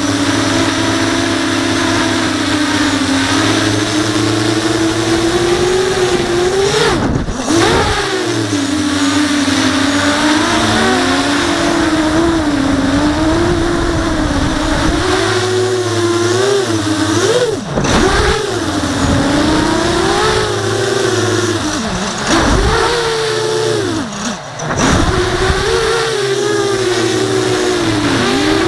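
Brushless motors and 5-inch propellers of an FPV racing quadcopter whining, heard from on board, the pitch rising and falling with the throttle. Several times the throttle is cut briefly and the whine drops away before it comes back.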